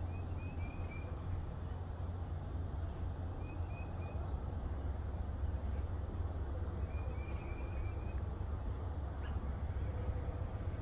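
A small bird singing a short phrase of four or five quick, slightly falling notes, repeated about every three and a half seconds, over a steady low rumble.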